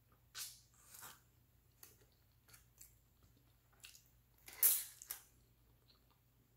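A person biting and chewing food held in the fingers, close to the microphone: a string of about eight short mouth and eating noises, the loudest a little before five seconds in.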